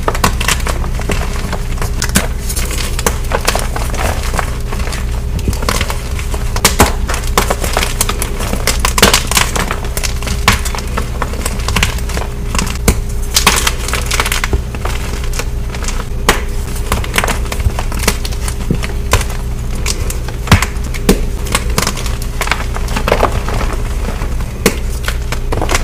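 Gym chalk being crushed and crumbled: a dense, irregular run of dry crunches and crackles, over a steady low hum.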